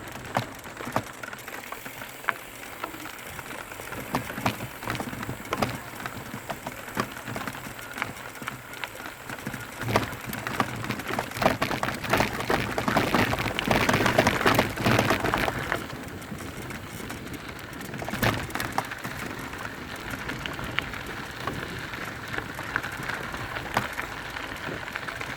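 Mountain bike descending a rough trail: tyres crunching over dirt and stones, with a dense patter of clicks and knocks from the bike rattling. It grows louder and busier partway through.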